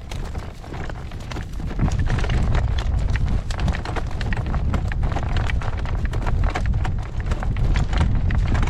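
Strong wind buffeting the microphone in a heavy low rumble, growing louder about two seconds in, with a horse's hooves clopping on the ground under it.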